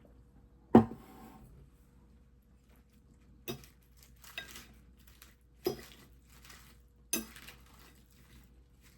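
Dishes and cutlery clattering in a kitchen: one sharp knock about a second in, then four lighter clinks with a short ring after each.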